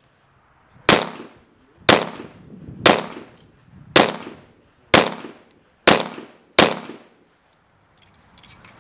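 Seven pistol shots fired at a steady pace of about one a second, the last two coming a little quicker, each a sharp crack with a short echoing tail.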